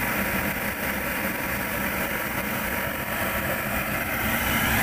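Diesel-fired forced-air space heater running steadily, its fan and burner making an even roar with a low hum underneath.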